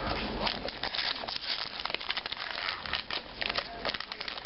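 Foil wrapper of a Magic: The Gathering booster pack crinkling and crackling as it is handled, with irregular sharp crackles throughout.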